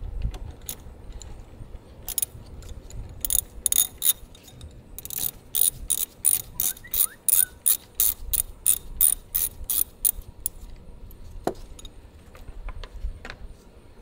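Ratchet wrench with a 10 mm socket clicking as the nut on the car battery's negative terminal clamp is loosened. A few scattered clicks come first, then a steady run of about three clicks a second, which stops a little past the middle.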